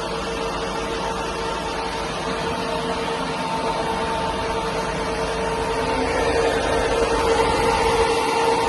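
Iveco Daily 3.0 diesel refrigerated van running at idle: a steady mechanical hum with a constant whine, growing a little louder in the last few seconds.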